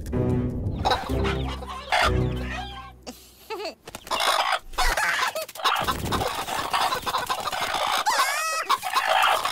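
Cartoon hens clucking and squawking as a flock. In the first three seconds there is a deeper, pitched voice, and about eight seconds in a brief warbling squeal.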